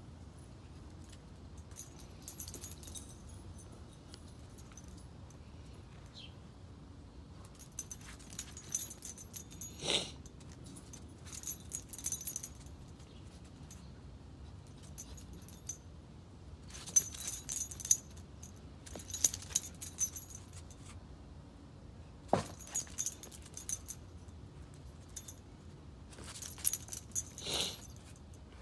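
Metal ID tags on dog collars jingling in repeated short bursts as the dogs move about, with a few brief sharper sounds mixed in.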